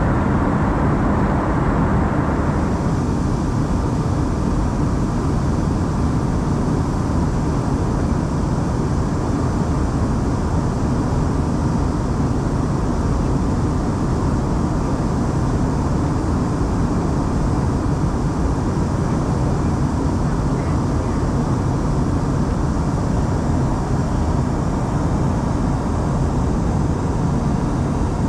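Steady engine and rushing-air noise inside a jet airliner's cabin in flight. About three seconds in, the sound shifts and a higher hiss comes in.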